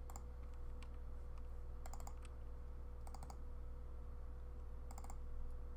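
Clicking at a computer desk: a couple of single clicks, then three quick clusters of clicks about a second apart, over a steady electrical hum.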